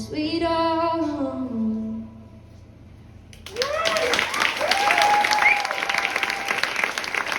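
The song's final held note rings out and fades away. Then, about three and a half seconds in, the audience suddenly breaks into applause with whoops and cheers.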